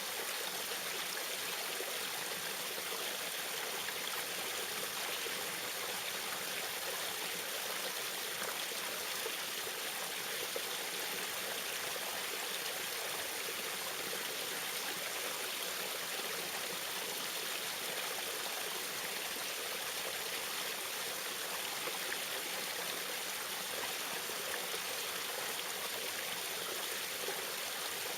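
Small waterfall: water falling and running in a steady, even rush with no pauses. The rush is bright and hissy, with little low rumble.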